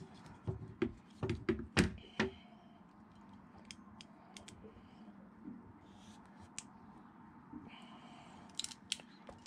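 Hand crimping tool clicking as red insulated ring terminals are crimped onto power wires. A quick run of sharp clicks comes in the first two seconds, then scattered faint ticks and handling rustle, and another cluster of clicks near the end.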